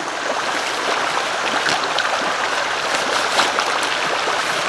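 Shallow creek running steadily, with nylon tent fabric rustling and crinkling now and then as the tent is pulled out of its stuff sack.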